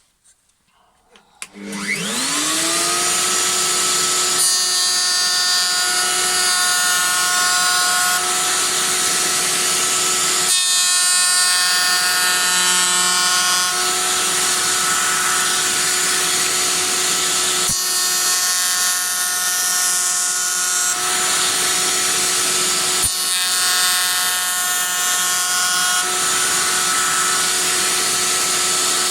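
Router table motor switched on, spinning up within about a second to a steady high whine. Wooden beehive frame bars are fed through the cutter again and again, adding a rough cutting noise that changes every few seconds as the Hoffman spacer shoulders are milled.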